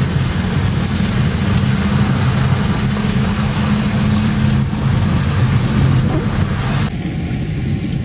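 Inside a car moving slowly in heavy rain: a steady low engine hum under an even hiss of rain and tyres on wet road. The sound changes abruptly near the end.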